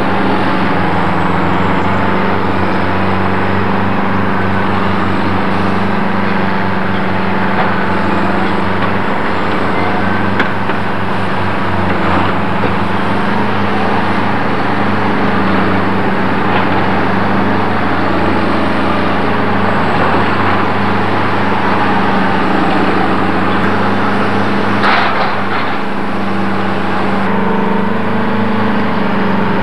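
Diesel engine of a tracked demolition excavator running steadily, with a couple of sharp knocks of debris, one near the middle and one near the end.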